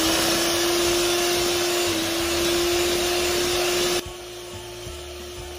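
Handheld electric mixer running at a steady whir, its beaters whisking eggs and sugar into a foam in a glass bowl. About four seconds in, the whisking noise drops off sharply while the motor hum keeps going.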